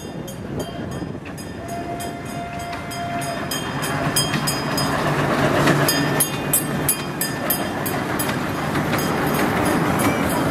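Children's ride-on train running along its small rail track and passing close by, its wheels making a regular clicking over the rails. It gets louder toward the middle as it goes by, and a short steady tone sounds about two seconds in.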